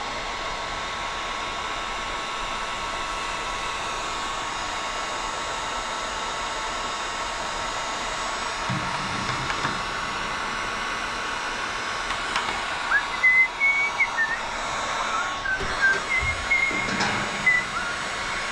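Electric heat gun running with a steady blowing hiss. In the latter part a few short high-pitched squeaks and light knocks sound over it.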